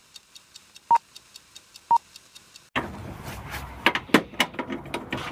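Film-countdown intro: a short high beep once a second, three times, over a faint fast ticking. About two and a half seconds in it cuts to a long breaker bar working a bolt on a truck's bumper mount, with a run of sharp metal clanks and knocks.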